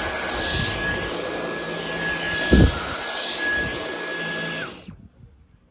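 Dyson V10 Animal cordless stick vacuum running on its boost setting, its motor spun up to full speed: a steady high whine over the rush of air. There is a brief low bump about two and a half seconds in, and the vacuum cuts off suddenly near the end.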